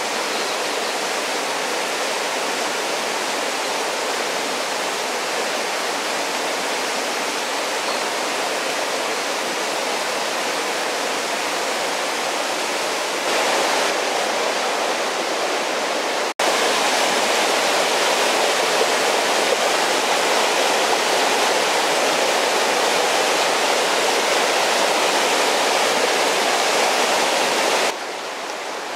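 Shallow rocky stream rushing over stones, a steady rush of water. It cuts out for an instant about halfway through and comes back louder, then drops quieter near the end.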